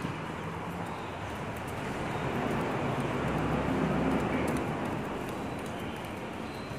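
A diesel refuse truck's engine heard from a distance, a low hum over steady street noise, swelling about three seconds in and then fading.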